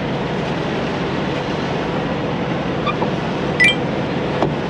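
A truck's diesel engine idling steadily, with a short squeak a little over three and a half seconds in as a scrubber rubs on the side mirror.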